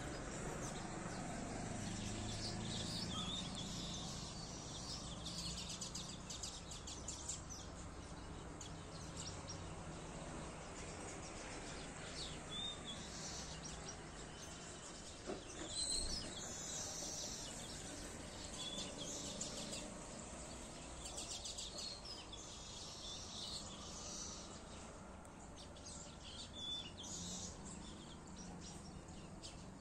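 Birds chirping in short calls now and then over a steady low background rumble.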